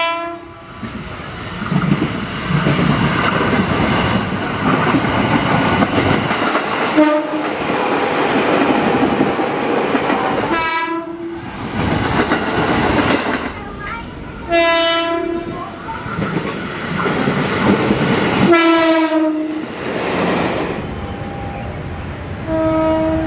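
Horn of a KRL Commuter Line 205 series electric train (ex-JR East 205 series) sounding several short blasts a few seconds apart, over the rumble and wheel clatter of the train running on the rails.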